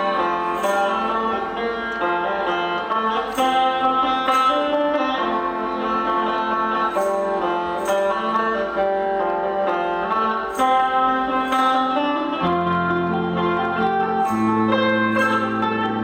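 Sape, the boat-shaped Sarawak lute, playing a plucked melody with guitar accompaniment. Deeper notes come in near the end.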